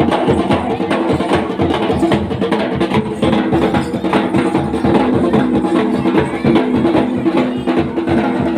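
Music with a fast, steady drum beat over sustained held tones.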